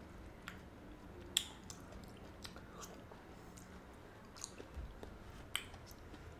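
Quiet close-up eating sounds from a mouthful of chè bưởi, pomelo-pith sweet soup with coconut cream: chewing and lip smacks, with a scattering of short sharp clicks. The loudest click comes about a second and a half in and another near the end.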